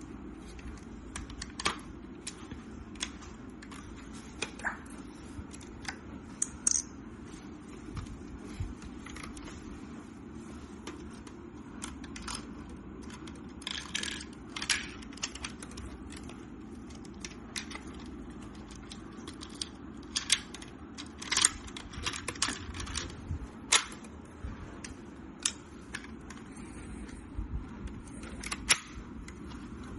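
Irregular plastic clicks and small rattles of a Lego brick rifle model being handled, some in quick clusters, over a steady low hum.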